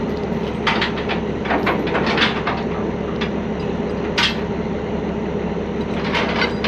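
Heavy truck diesel engine idling steadily, with scattered metallic clanks and clinks of recovery chain and hooks being handled and rigged to the trailer: a few in the first couple of seconds, a sharp one about four seconds in and several more near the end.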